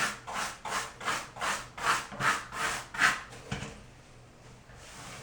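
A brush scrubbed back and forth over freshly set mosaic floor tile, clearing excess thinset out of the grout lines: quick rhythmic scraping strokes, about three a second, that stop a little past halfway.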